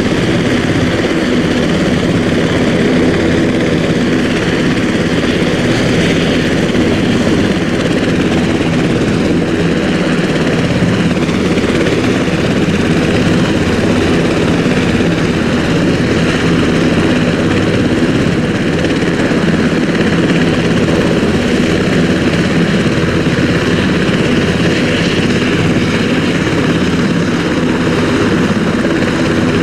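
Sikorsky S-92 search-and-rescue helicopter running on the ground with its rotors turning: a steady, loud rotor and twin-turboshaft noise with a high turbine whine over it.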